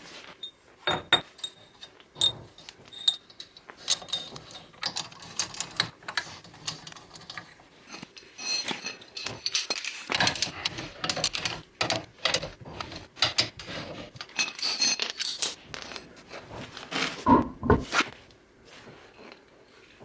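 Irregular metal clinks, taps and knocks of wheel nuts, bolts and hand tools being handled while a wheel spacer and wheel go onto a car's hub, with a few light rings and a louder knock near the end.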